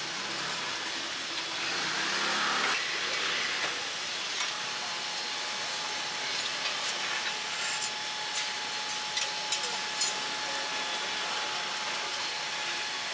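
Steady hissing background noise of a food stall, with a faint steady whine joining about four seconds in and a few light taps around eight to ten seconds in.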